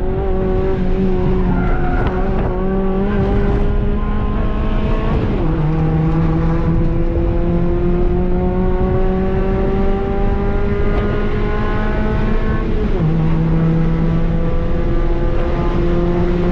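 Muffler-deleted 1.5-litre four-cylinder engine of a 2008 Honda Fit Sport, heard from inside the cabin, accelerating hard through the gears. Its note climbs steadily in pitch, with two upshifts: one about five seconds in and another about thirteen seconds in.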